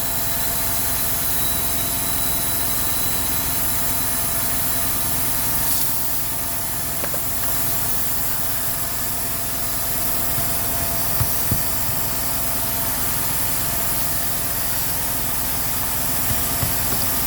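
A motor running steadily under a constant hiss, with a few faint clicks.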